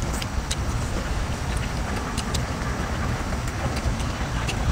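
Wind buffeting the microphone: a steady low rumble, with scattered small clicks of eating and of a sea-snail shell being handled.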